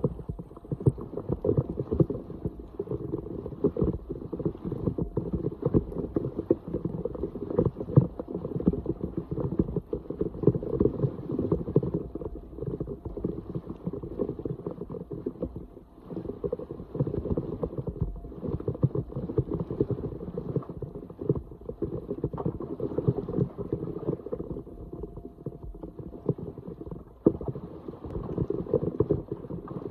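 Floodwater sloshing and gurgling around a clogged street drain as it is cleared, with many small knocks and splashes throughout.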